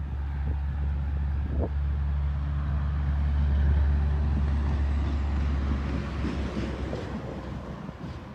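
A motor vehicle's engine running as a steady low hum, growing louder toward the middle and fading away over the last couple of seconds, like a vehicle passing by.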